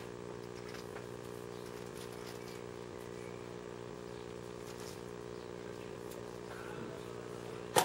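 Steady low mechanical hum made of several even tones, with one sharp click near the end.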